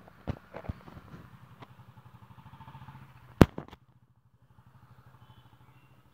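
A few sharp clicks near the start and one loud sharp knock about three and a half seconds in, over a low, steady, pulsing hum like an idling engine.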